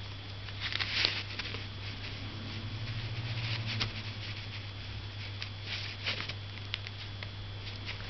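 Chinese ink brush dabbing and sweeping across paper in a few short brushing strokes, in clusters about a second in, near four seconds and around six seconds, over a steady low hum.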